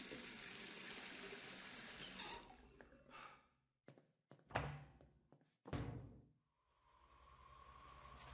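Tap water running into a sink for about two seconds, then stopping. Then a few knocks and thuds, the loudest about four and a half seconds in, as a toilet stall door is pushed shut and latched, and a faint hum grows louder near the end.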